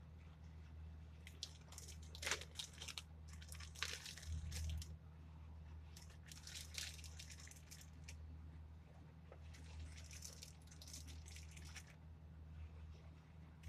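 Raw pork chops being handled and laid onto sauerkraut and chopped onion in a slow-cooker crock: three spells of soft, wet handling noises, the loudest about two to four seconds in, over a low steady hum.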